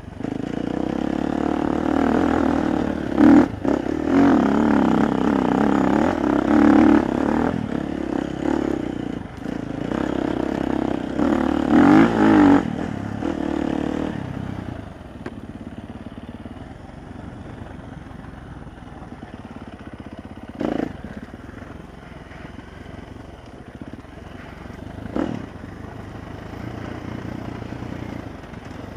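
Dirt bike engine revving up and down hard on a rough bush trail, then running more quietly at low throttle for the second half. Several sharp knocks punctuate it.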